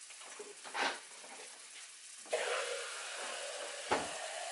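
Flour, butter and grease roux sizzling in a cast-iron skillet. A louder, steady rushing noise joins about two seconds in, and a short knock sounds near the end.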